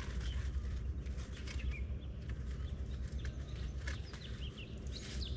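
Small birds chirping in short, quick calls, thicker near the end, over a steady low rumble of wind on the microphone, with a few faint clicks.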